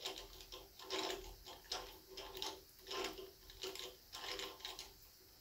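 A T-handle hex key tightening the set screw in a rocker-arm adjusting nut on a Pontiac V8, locking in the valve lash setting: faint, irregular metallic clicks and scrapes, a few each second.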